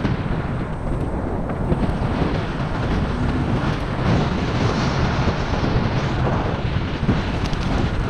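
Wind buffeting the microphone of a camera worn by a rider moving along on an electric scooter: a dense, steady low rumble.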